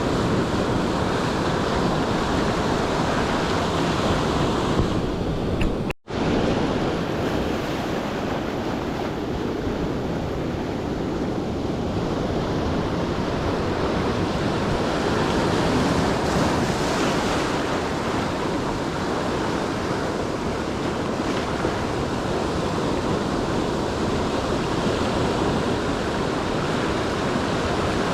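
Ocean surf washing on the shore, a steady rushing with wind on the microphone. About six seconds in, the sound cuts out for an instant and then resumes.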